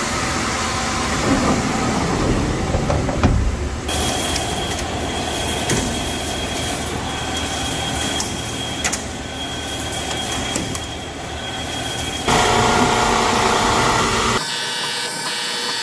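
CNC machining center cutting a steel plate: steady machine and cutting noise with scattered sharp ticks. A thin high whine runs through the middle stretch. The sound changes abruptly about four seconds in, about twelve seconds in and again near the end.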